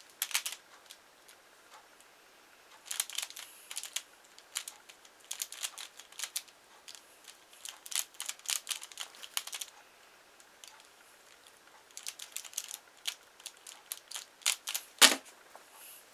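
Plastic pyraminx puzzle being turned by hand in quick bursts of sharp clicking. A single louder thump comes near the end as it is put down on the mat.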